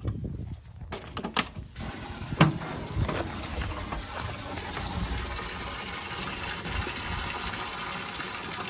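A few knocks, then water gushing steadily into a cattle watering trough as it fills.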